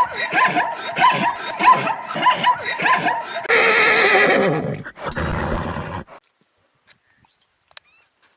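A horse whinnying: a long quavering call, then rougher neighs, stopping about six seconds in and leaving near silence with a few faint clicks.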